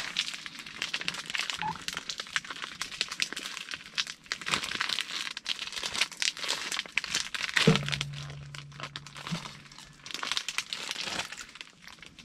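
Thin plastic bag crinkling and rustling as it is handled and opened, with a short low hum starting about eight seconds in.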